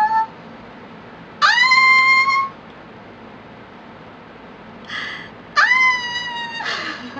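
A young woman's excited high-pitched squeals, two of them, each swooping up and held for about a second, with short breathy bursts between them.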